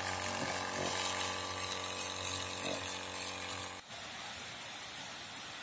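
Small electric motor running on an 18650 battery pack with a steady, buzzing hum that cuts off suddenly about four seconds in as its lead is disconnected.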